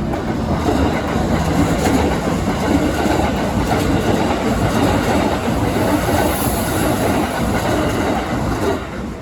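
A train passing close by at a railway level crossing, its wheels clacking over the rail joints. The sound drops away shortly before the end.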